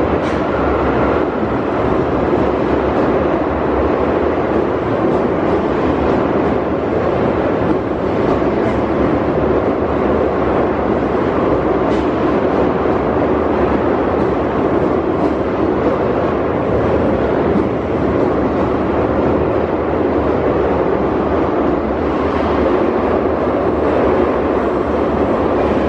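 Keio 5000-series electric train pulling out of an underground station platform, its cars running past steadily with a continuous rolling rumble of wheels on rail.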